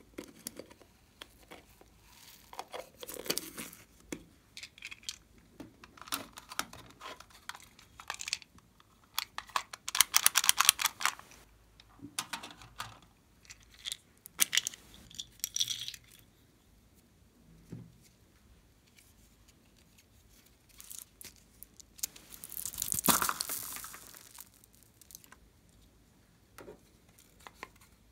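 Small foam beads crackling and rattling as they are shaken out of plastic containers onto slime, with handling of the plastic containers and lids. The crackle comes in irregular bursts with quiet gaps, loudest about ten seconds in and again around twenty-three seconds.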